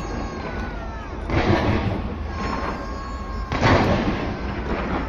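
Fireworks going off, with two loud booming bursts, the first just over a second in and the second about three and a half seconds in, over a continuous rumble of more distant bangs.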